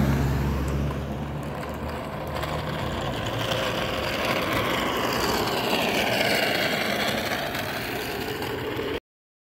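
A pickup truck drives past, its engine hum fading over the first couple of seconds. Then the helicopter, its rotor stopped, is towed past on a small wheeled rig, with tyre rolling noise and a high whine that rises and then falls as it goes by. The sound cuts off suddenly near the end.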